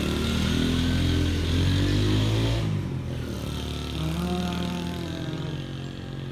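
Small motorcycle engine running and revving close by, its pitch wavering up and down for the first couple of seconds, then easing off and rising again about four seconds in as it pulls away. The bike is being test-run just after repair, with its exhaust pipe newly refitted.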